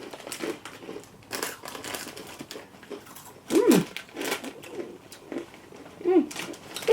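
Flaming Hot Cheetos being eaten and their packet handled: scattered crunching and crinkling, with a few short vocal sounds in between.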